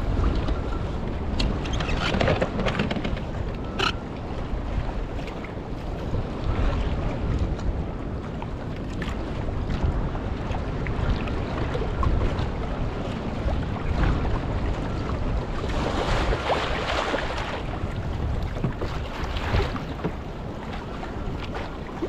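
Wind buffeting the microphone in a constant low rumble, over choppy water slapping and splashing, with louder splashes about two seconds in and again around sixteen seconds.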